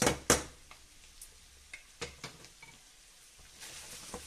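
Wooden spatulas knocking and scraping against a frying pan in the first moment, then minced meat and chopped vegetables frying with a faint sizzle and a few light clicks.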